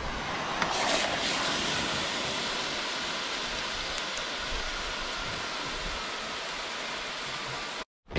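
Hot charcoal in a disposable foil barbecue tray hissing and sizzling as it is quenched in a seawater rock pool, giving off clouds of steam. The hiss is steady, strongest about a second in, then eases slowly and cuts off abruptly near the end.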